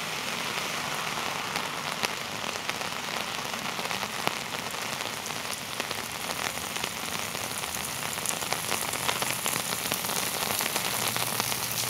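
Heavy rain falling steadily on a city street, with many sharp drop hits landing close by.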